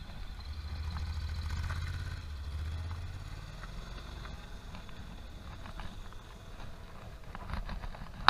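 Motorcycle engine running at low revs as it goes by, loudest about a second in, its note dropping a little about two seconds in, then fading out by about three and a half seconds. A few light taps near the end.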